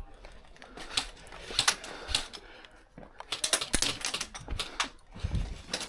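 Airsoft guns firing in rapid bursts of sharp, clicky shots, heaviest in the second half.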